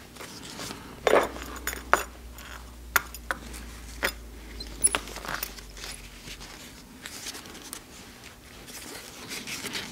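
Small clicks and clinks as a solid brass heel bar belt buckle and a leather keeper are handled and fitted onto a belt strap over a work board. A sharp click about once a second for the first five seconds, then quieter fiddling.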